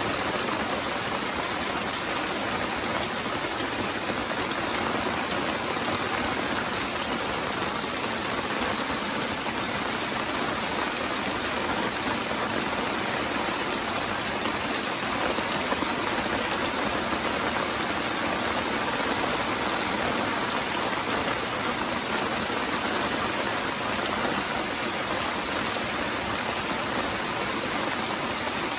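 Steady rain falling: an even hiss with faint scattered drop taps.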